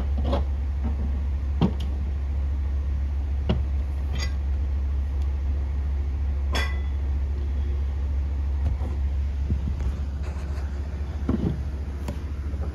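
Several knocks and clanks of an aluminium cylinder head and its stands being handled on a bench, one of them midway a ringing metal clank. Under them runs a steady low hum.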